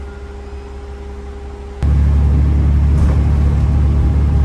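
The KiHa 47 railcar's diesel engine idles with a low hum, then about two seconds in there is a click and the engine suddenly opens up to a loud, steady low drone as the railcar pulls out of the station.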